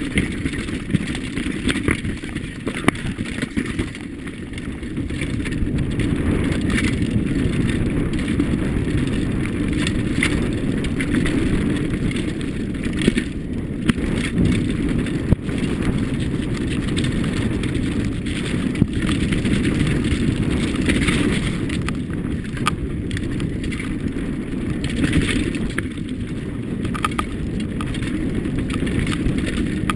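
Wind buffeting the microphone of a camera on a mountain bike riding fast down a dirt forest trail, with the rumble of the tyres and scattered clicks and knocks as the bike rattles over stones and roots.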